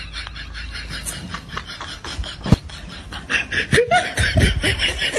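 A person laughing in quick, rhythmic snickers, several a second, getting louder about three seconds in.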